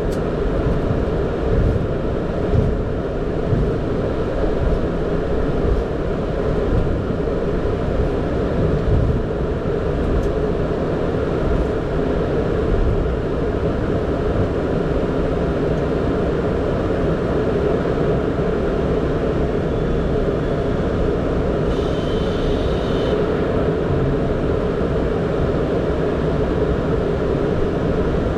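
Steady cockpit noise of a Boeing 767 taxiing: a continuous low rumble from the idling engines and the airframe rolling over the taxiway. A brief high tone sounds about 22 seconds in.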